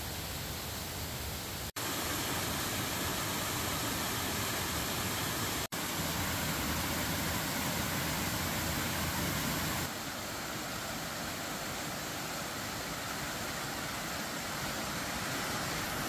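Waterfall pouring over rock ledges: a steady rush of falling water, cutting out briefly twice and dropping a little in level about ten seconds in.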